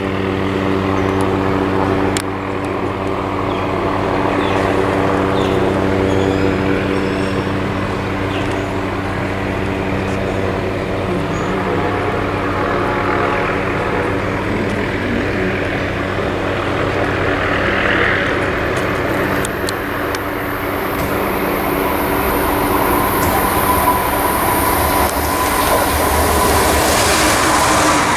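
Amtrak ACS-64 electric locomotive and its passenger cars approaching at speed: a steady low hum for most of the time, then a rising rush and hiss of wheels on rail that grows loudest as the train draws alongside near the end.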